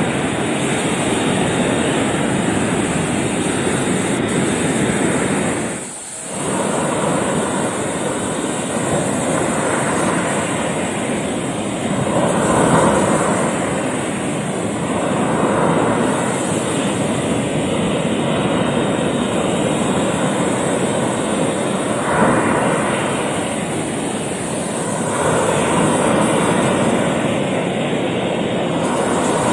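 Sea surf breaking and washing over a rocky shore: a continuous rush that swells several times as waves come in.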